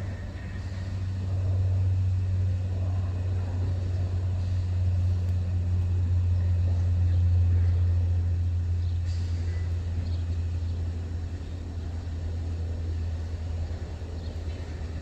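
Vehicle driving, heard from inside the cab: a steady low engine and road drone that swells and eases gently.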